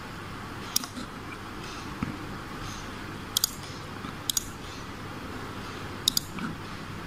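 Computer mouse clicking, five short sharp ticks spread over several seconds, the last three each a quick double tick, over a steady low room hum.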